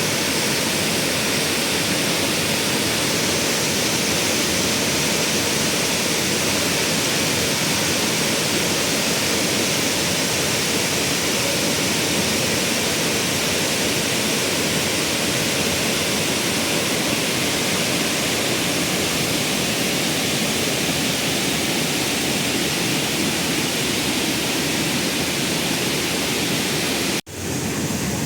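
Rushing water of a waterfall, a steady, loud, even rush with no breaks; it cuts out abruptly for an instant near the end.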